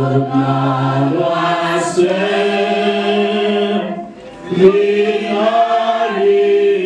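A choir singing a slow hymn in long held notes, with a short pause about four seconds in before the voices come back in.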